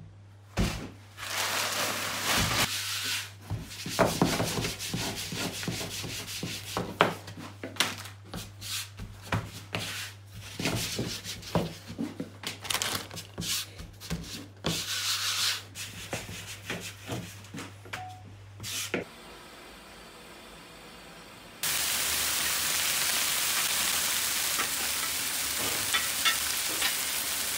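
Rubbing, pressing and tapping as hands work floured somsa dough on a wooden table, over a low steady hum. About two-thirds of the way in this gives way to a steady sizzling hiss from a large kazan of pilaf carrots cooking in liquid.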